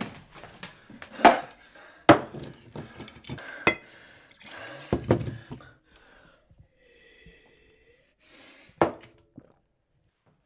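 Kitchenware clattering: a rapid run of sharp knocks and clinks of dishes, cups and utensils being handled at a counter, then a brief steady tone about seven seconds in and one loud knock near nine seconds.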